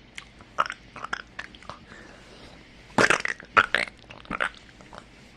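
Handling noise: irregular crunchy crackles and clicks in two clusters, the louder one about three seconds in.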